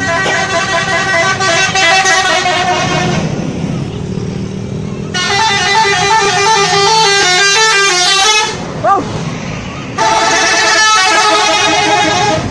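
Subur Jaya bus's 'telolet' multi-tone musical horn playing its stepping melody in three blasts of about two to three seconds each, with short pauses between.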